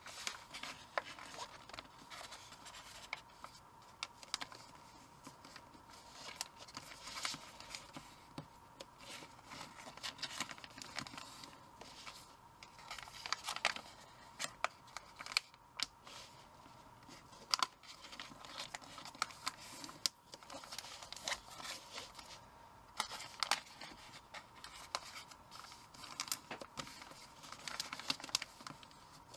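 Origami paper being folded and creased by hand: irregular crackling rustles and short, sharp scrapes as fingers run along the folds. A faint steady whine sits underneath.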